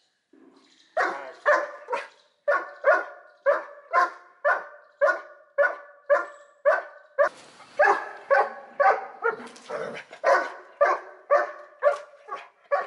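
Doberman pinscher barking over and over at an approaching stranger, about two loud barks a second after a quiet first second: defensive guard barking while lunging on the leash.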